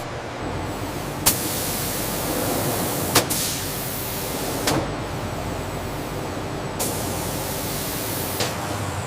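Steady rushing, hiss-like industrial noise with a few sharp clicks spread through it.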